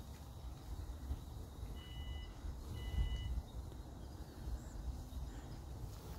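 Wind rumbling and buffeting on the microphone, with two short electronic beeps about two and three seconds in, each about half a second long.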